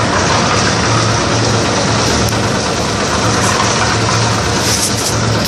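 Engine of a portable drum concrete mixer running steadily, with a low, pulsing throb.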